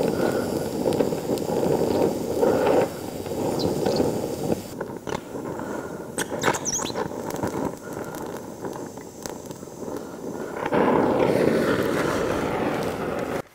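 Oxy-fuel brazing torch flame rushing steadily against a cast iron lever as bronze brazing rod is melted into the joint, with a few sharp crackles around the middle. The flame sound changes about five seconds in and grows louder near the end.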